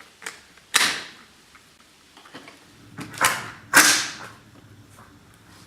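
AR-15 rifle being readied to fire: three sharp mechanical clacks, one about a second in and two more close together around three seconds in.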